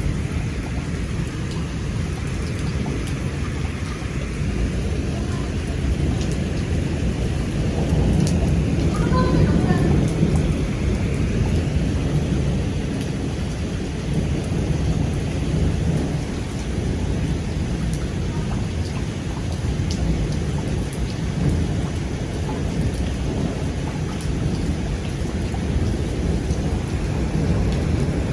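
Heavy rain pouring steadily, with rumbling thunder that swells loudest about eight to eleven seconds in.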